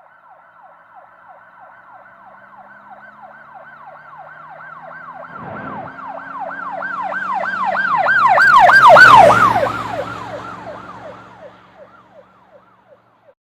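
Emergency vehicle siren on a fast yelp: rapid falling wails, about three a second, growing louder to a peak about nine seconds in and then fading away, as a vehicle passes. Engine and road noise are heard under the loudest part.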